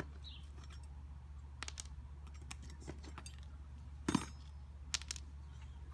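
Metal tools and roofing nails clinking and clicking as the nails are pulled from under a shingle with a pry bar: a scattering of light metallic clicks, the two sharpest about four and five seconds in, over a steady low hum.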